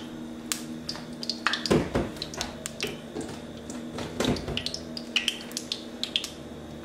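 Coconut oil melting in a heating nonstick frying pan, crackling and popping irregularly.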